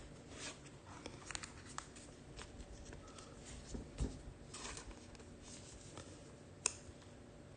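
Faint rustling and light clicks of trading cards being handled and slid past one another, with one sharper click about two-thirds of the way in.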